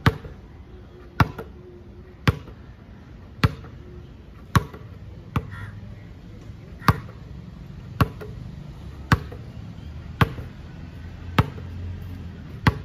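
A basketball bouncing about once a second, eleven or so sharp bounces at an even pace, one weaker than the rest near the middle: the beat of a dribble-and-hold drill, the ball caught and gripped in one hand between bounces.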